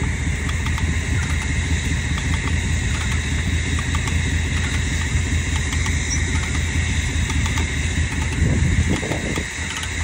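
Truck engine running steadily with a constant low rumble.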